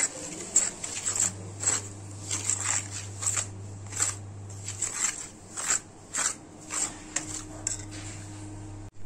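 Steel spoon stirring dry flour mixed with beaten curd in a steel bowl, scraping and scooping in short repeated strokes, about two a second, which stop shortly before the end. A steady low hum runs underneath.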